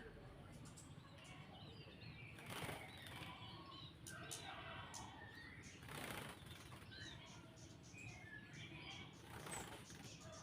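A cucak jenggot bulbul fluttering its wings while being bathed, in three short bursts, with faint chirps scattered throughout.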